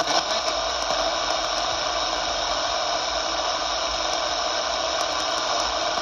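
Luiton LT-298 CB radio's speaker giving out a steady hiss of static, with no station coming through.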